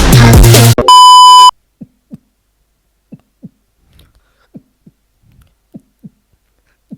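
A loud, steady electronic beep lasting about half a second, then a mouth-made heartbeat: soft paired lub-dub thumps, about one pair every 1.2 seconds, five pairs in all.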